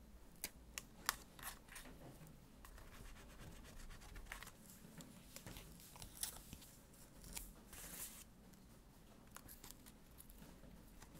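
Quiet sticker and paper handling: stickers peeled from their backing sheet and picked up and pressed down with tweezers, giving scattered small clicks and short scratchy rustles.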